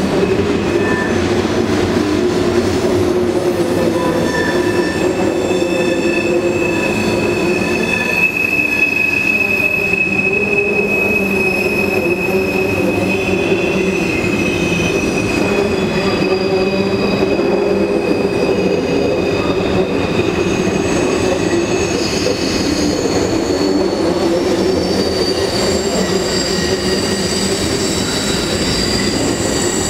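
Freight train of covered hopper cars rolling across a steel trestle bridge: a steady rumble of wheels on rail, with a long high wheel squeal from a few seconds in to about twenty seconds in, then higher squeals near the end.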